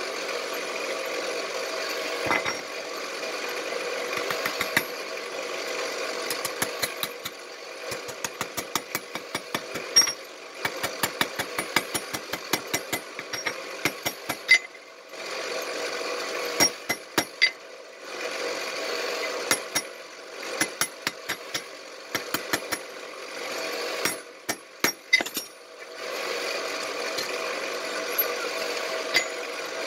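Hand hammer striking steel tongs on an anvil in runs of quick blows, about three a second, with pauses between the runs. A steady noisy hum runs underneath.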